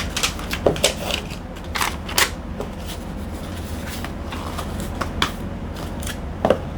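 Small items and packaging being handled for an order: scattered clicks, taps and rustles, the sharpest about two seconds in and near the end, over a steady low hum.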